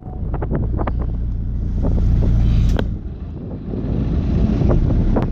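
Taxi boat's engine running with a steady low rumble, with wind buffeting the phone's microphone and a few short sharp clicks.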